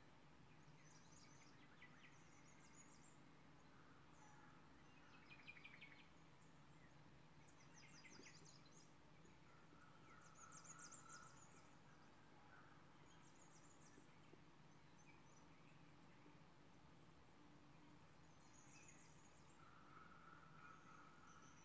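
Near silence: faint steady room hum, with a few faint, brief high chirps now and then.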